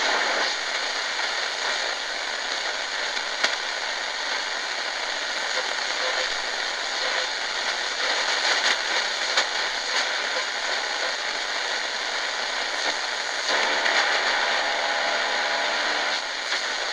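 Shortwave static and hiss from the Tecsun GR-138 portable radio's speaker while it is tuned, with scattered crackles and faint whistling tones. A weak signal comes up through the noise in the last few seconds.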